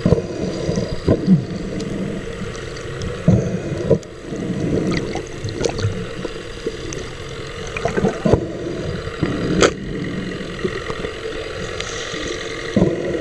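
Underwater sound picked up by a camera in its housing: a muffled wash of water with irregular clicks and knocks scattered throughout, over a faint steady hum.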